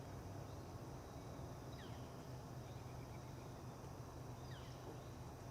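Faint outdoor ambience: a steady low hum under three short, downward-sliding bird calls, two to three seconds apart.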